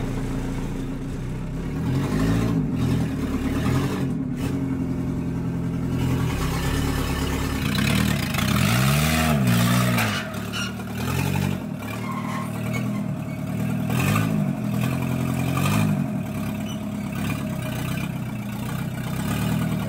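Volkswagen Transporter van's swapped-in TDI diesel engine, tuned for more power, running and being revved in a series of short blips, its pitch rising and falling with each one, mostly in the second half.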